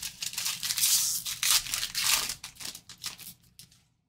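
A 2024 Topps Heritage baseball card pack wrapper being torn open and crinkled: a dense crackling tear that lasts most of four seconds and stops shortly before the end.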